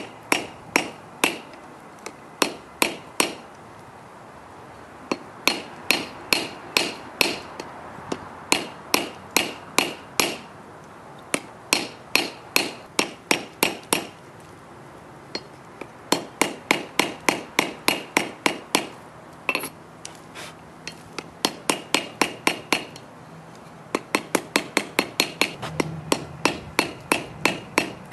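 Hand hammer striking a red-hot forge-welded wrought iron and 1084 steel knife blank on an anvil, in runs of quick blows with short pauses between. Each blow rings briefly.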